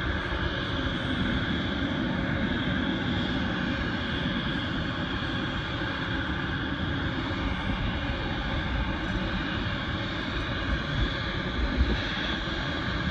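Distant jet airliner engines running steadily, a continuous even roar with no clear rise or fall, over a low rumble with a couple of brief bumps near the end.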